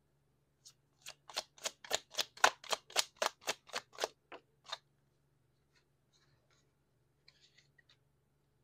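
A deck of tarot cards being shuffled in the hands: a quick run of about fifteen crisp card snaps, three or four a second, lasting about four seconds. A few faint taps near the end as cards are set down.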